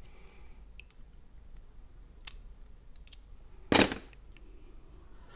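Small metallic clicks from handling a picked lock cylinder and its tools while starting to take it apart, with one louder, brief metal scrape or clack a little before the end.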